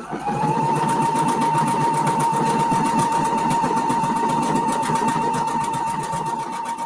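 Husqvarna Viking computerized sewing machine running steadily at speed. A steady motor whine sits under a rapid, even patter of needle strokes as it sews a wide Omni-Motion decorative stitch that moves the fabric sideways.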